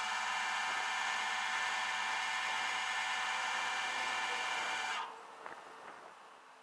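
A motor's steady, high whine that cuts off suddenly about five seconds in.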